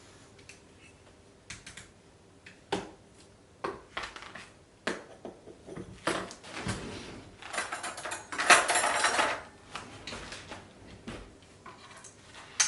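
Irregular clicks, knocks and light clatter of household objects being handled, with a louder stretch of rustling and scraping about eight seconds in.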